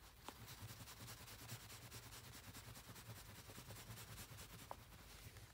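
Faint, rapid back-and-forth rubbing of a microfiber towel over a steel nail setter as it is polished, over a low steady hum, with a couple of light ticks.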